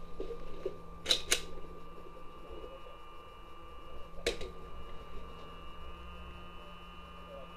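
A few sharp mechanical clicks, two close together about a second in and one more a few seconds later, over a faint steady hum.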